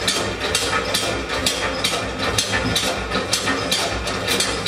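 1873 Hick Hargreaves Corliss-valve mill steam engine running, its motion clacking in a steady rhythm of about three sharp clicks a second over a low rumble.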